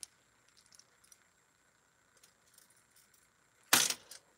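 Small metal jewelry pieces clicking faintly as they are handled, then a brief loud jangle of jewelry against the plastic tray near the end.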